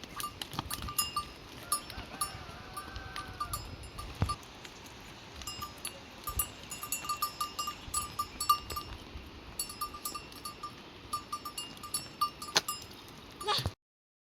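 Small bells on livestock clinking irregularly, with many sharp clicks and knocks and a short animal bleat about two seconds in. The sound cuts off abruptly just before the end.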